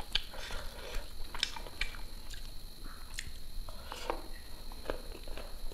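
Close-miked eating sounds: fingers mixing rice and curry on a paper plate, then chewing and wet lip smacks, heard as a scatter of soft clicks and smacks.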